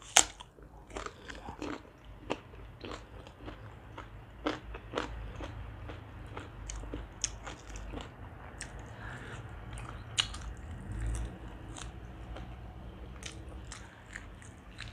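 A person biting into a raw green vegetable and chewing crunchy food close to a lapel microphone. There is a sharp crunch right at the start, then many small crisp crunches and clicks of chewing throughout.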